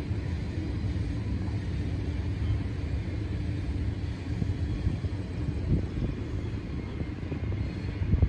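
Steady low rumble of a distant freight train climbing the grade, its diesel locomotives working under load, with a few brief knocks of wind on the microphone near the end.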